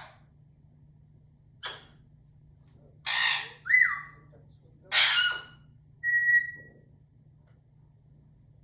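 A bird squawking and whistling: about five short harsh squawks, one ending in a whistle that slides down in pitch and another followed by a short steady whistle.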